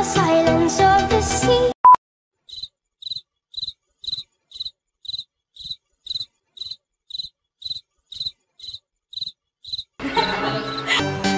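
Background music cuts off, a single short electronic beep sounds, then a steady run of short high chirps about twice a second, before the music comes back in near the end.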